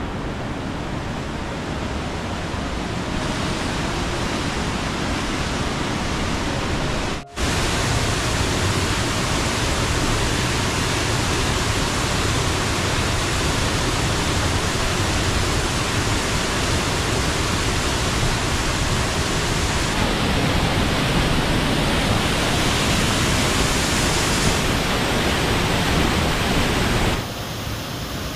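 Mountain waterfall rushing loudly and steadily, a dense even roar of falling water, with a brief break about a quarter of the way in.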